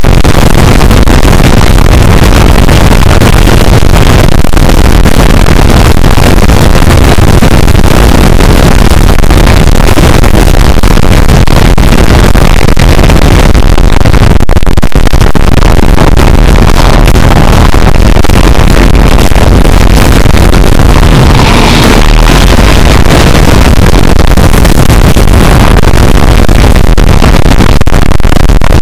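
Fireworks show soundtrack blasting from loudspeakers close by. Its bass overloads the camera's microphone into constant distortion at a steady, maxed-out level.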